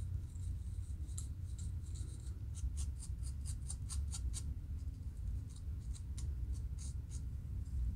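Fine-tooth plastic comb scratching across a dry, flaky scalp in short rasping strokes, lifting dandruff flakes; the strokes come fastest, about four a second, in the middle. A low steady rumble runs underneath.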